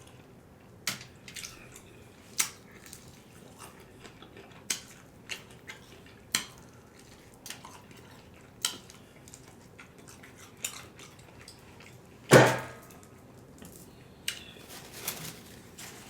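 Close-up eating of KFC fried chicken: scattered sharp crunches and clicks from biting and chewing. One louder, longer burst comes about three-quarters of the way through.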